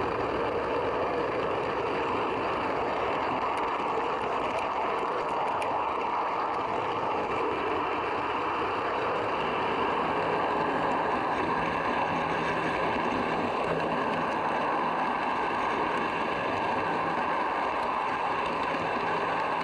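Steady rolling noise of a model railway coach running along the track, heard from a camera riding on the coach, with a low hum joining about halfway through.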